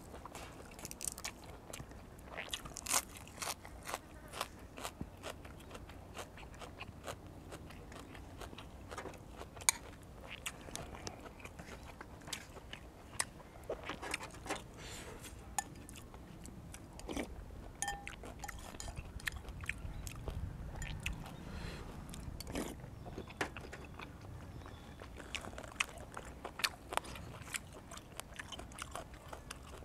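A person eating close to the microphone: chewing with many short, sharp crunches and mouth clicks, the crunch of fresh raw vegetables.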